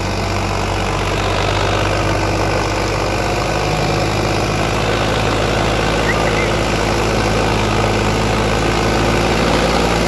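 Sonalika MM-35 tractor's diesel engine running steadily as it pulls a disc harrow through tilled soil, its note shifting slightly about three and a half seconds in.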